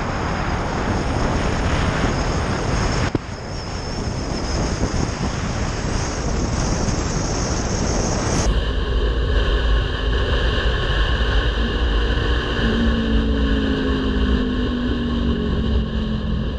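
Heavy wind noise buffeting a motorcycle rider's camera at road speed. About eight seconds in it switches abruptly to a motorcycle engine running in traffic, with a deep rumble and an engine note that glides slowly downward near the end.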